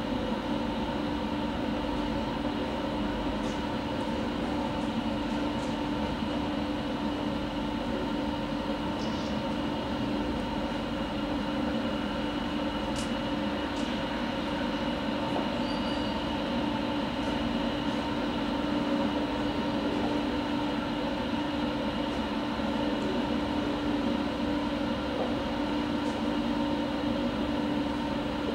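Steady mechanical hum with several held tones over an even rushing noise, unchanging throughout, with a few faint ticks.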